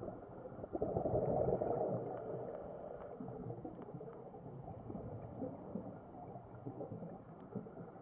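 Muffled underwater rush and rumble picked up through a camera housing, with a louder gurgling swell of a diver's exhaled bubbles about a second in.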